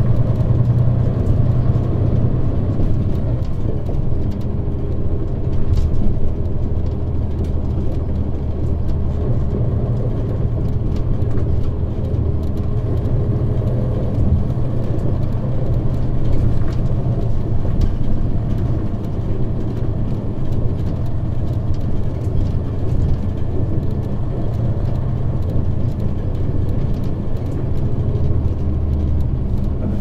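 Mitsubishi Fuso KL-MP35JM city bus with its naturally aspirated 12.9-litre 6M70 diesel engine running steadily, a low, even engine drone with no gear changes or rising revs, heard while the bus is under way. A deep part of the drone drops away near the end.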